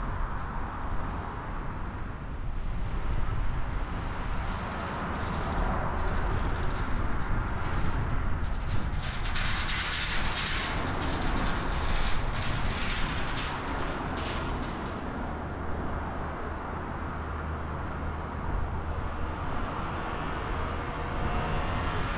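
Steady vehicle rumble and road noise from driving on city streets, with a louder stretch of hiss and quick rattling clicks about halfway through.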